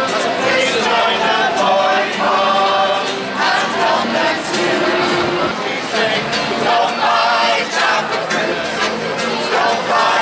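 Music with singing, several voices together like a choir.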